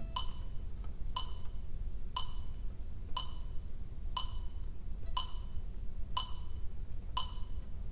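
Metronome clicking steadily about once a second, eight even ticks, each with a short ringing tone.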